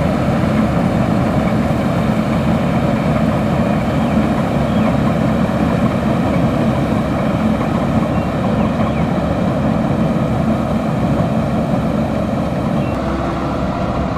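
Kubota combine harvester running steadily with a loud engine, easing off slightly near the end.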